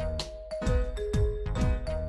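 Children's background music: a simple, bright melody over a steady beat of about two thumps a second.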